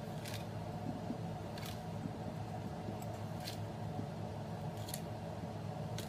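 Cookie sandwiches being set one at a time into a glass jar: four short scraping brushes, one every second and a half or so. A steady low hum runs underneath.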